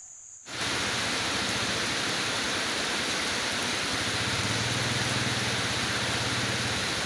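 Heavy rain pouring down, a dense steady hiss that starts abruptly about half a second in. A motorcycle engine idles low beneath the rain from about four seconds in until just before the end.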